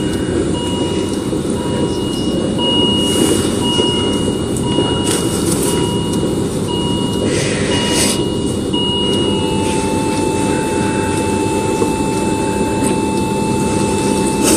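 Hospital heart monitor beeping about once a second, then, about nine and a half seconds in, changing to one continuous, slightly lower tone: the flatline alarm of a heart that has stopped. A steady low rumble runs underneath.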